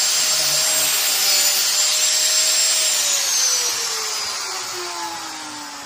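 Electric grinder cutting steel with a steady whine and hiss, then released about three seconds in, its whine falling in pitch as the disc spins down.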